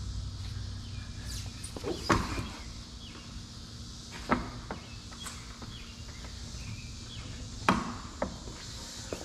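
About four sharp knocks and taps of a plastic ZR1-style rear spoiler being pressed and set down on a C6 Corvette's rear decklid during a test fit. Its mounting studs are not yet seating in the drilled holes.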